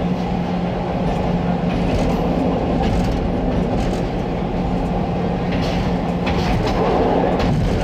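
CTA rapid-transit train running through a subway tunnel: a steady rumble of wheels on rail, with a low steady hum underneath.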